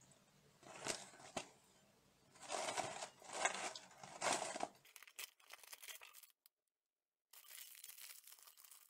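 A cardboard cracker box being torn open: a couple of light scrapes, then three loud rips. After a brief cut-out, the foil snack bag inside crinkles as it is pulled out and handled.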